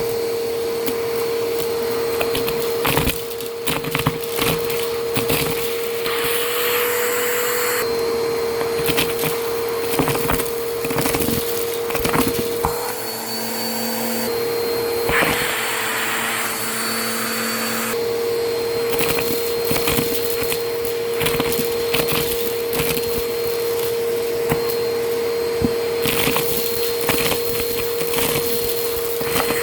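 Vacuum cleaner running with a steady motor hum while it sucks up crunchy debris that crackles and rattles through the nozzle. A few times the airflow hiss swells for a couple of seconds.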